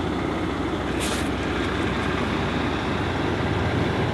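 A vehicle engine running steadily with a low rumble, and a short hiss about a second in.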